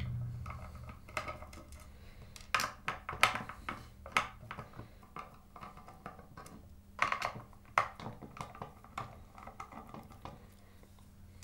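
Light, scattered clicks and clinks of small metal screws and a Phillips screwdriver as the outer screws are backed out of an effects pedal's metal bottom plate and set down on a wooden tabletop, in several short clusters.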